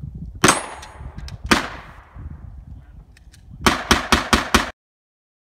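Gunshots: two single shots about a second apart, then a rapid string of about six shots, after which the sound cuts off suddenly.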